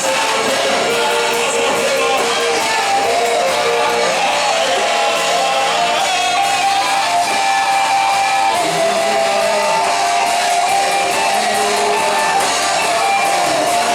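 Live band music with electric guitar and singing voices, played loud and steady without a break.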